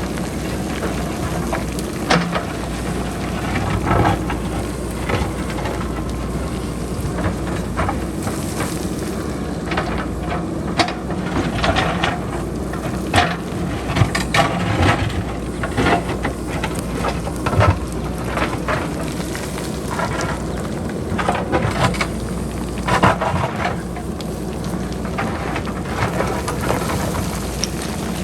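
Boulders and pebbles clattering as they tumble down a hillside cut by a JCB backhoe loader: a continuous rattle of rock on rock with frequent sharper knocks. A low, steady machine hum runs beneath.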